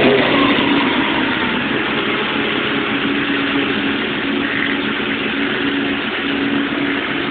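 Toyota 1UZ-FE quad-cam 32-valve V8 idling steadily, running on a swapped-in GM LS1 engine computer.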